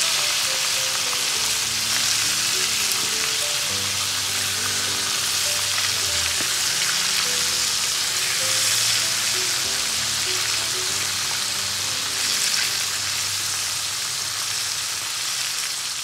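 Flour-coated oysters deep-frying in hot oil, a steady dense sizzle, over soft background music.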